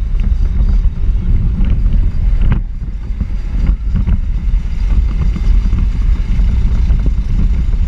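Onboard sound of a Power Racing Series electric ride-on car (a modified toy Jeep) at race speed: heavy wind buffeting on the microphone over the car's rattle. Two sharp knocks come about two and a half and nearly four seconds in.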